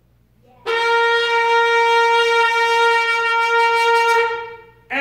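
A shofar sounded in one long, steady blast of about three and a half seconds that fades out near the end. It is the cue for the congregation to shout.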